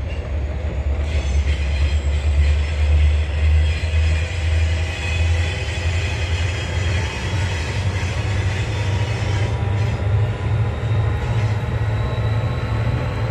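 A train passing: a heavy, low rumble that takes on a regular beat in the second half, with thin, steady high tones above it.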